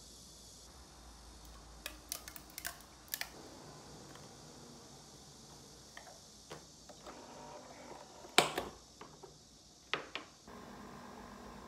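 Light clicks and knocks of a plate and the lid of a capsule coffee machine being handled, with one sharp click about 8 seconds in as the head is shut. About ten seconds in the machine starts brewing with a steady hum.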